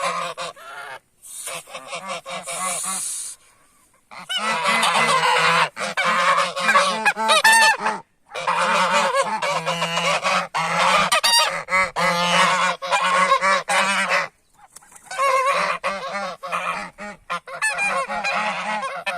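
A flock of geese honking loudly and repeatedly, the calls coming in long overlapping runs with brief pauses, as geese do when people approach them.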